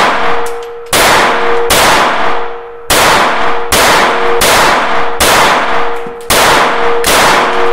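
CZ 75 Kadet .22 LR pistol firing a steady string of shots, about one a second, each crack followed by a short echo, with a metallic ring held underneath. It cycles every round even though, by the shooter's account, it is dirty and dry.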